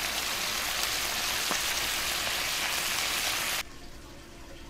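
White bass fillets frying in melted butter in a skillet: a steady sizzle with a faint click or two. It cuts off suddenly near the end, leaving a much quieter steady hum.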